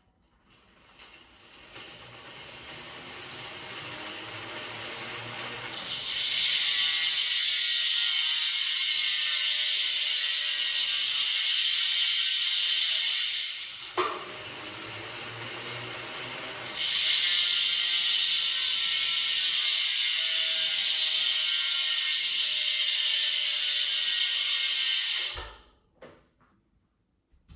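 Bontrager Aeolus Elite 50 rear hub's in-house freehub ticking, its pawls ratcheting so fast they run together into a loud buzz. It builds up over several seconds, drops back with a click about halfway through, surges loud again, then stops abruptly near the end.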